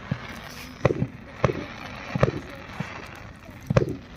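Aerial fireworks bursting: a run of sharp bangs, about five in four seconds, each with a short rumbling tail.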